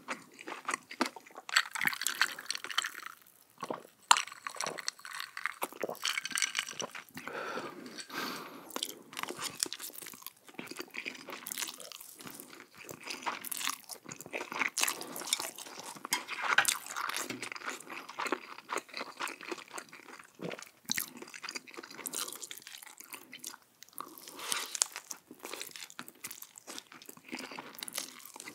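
Close-miked eating: repeated crunchy bites and chewing of crisp food, full of sharp crackles.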